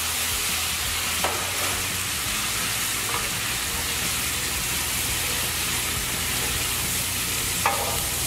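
Pasta cooking water sizzling in a hot iron pan of browned charque as it deglazes the pan, a steady loud hiss. A wooden spoon stirs and scrapes the pan bottom now and then, loosening the browned fond.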